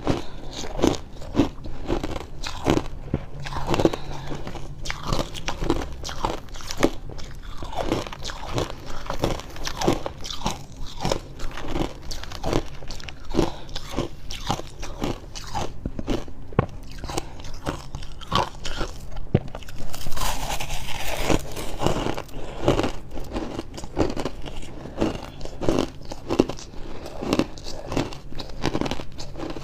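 A person biting and chewing freezer frost: a quick, continuous run of dry, crisp crunches, with a louder, hissier crunch about twenty seconds in.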